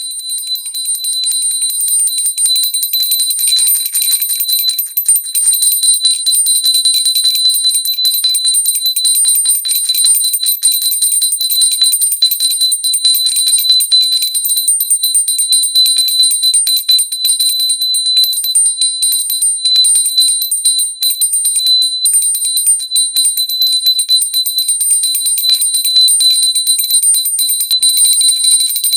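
Hindu pooja hand bell rung rapidly and without pause, its clapper striking many times a second over a steady, high ring.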